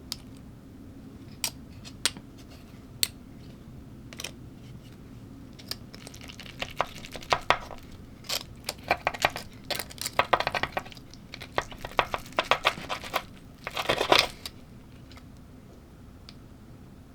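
Close-miked eating sounds: a few sharp clicks, then several seconds of dense crunching and crackling, loudest near the end.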